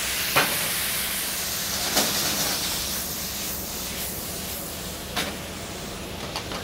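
Fresh diced tomatoes sizzling and hissing in a hot skillet of olive oil and garlic, the sizzle slowly dying down as the pan cools. A few light knocks are heard along the way.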